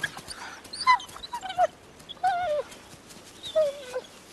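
Gray wolf whining: a string of about five short, wavering whimpers, each sliding down in pitch.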